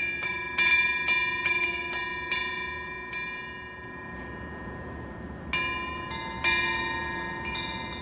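Metal punggyeong (Korean temple wind bell) hanging from the eave, its clapper knocked about by the wind. It rings in a quick run of about eight clear strikes over three seconds, each tone hanging on and fading. After a pause of about two seconds, a second run of four or five strikes follows.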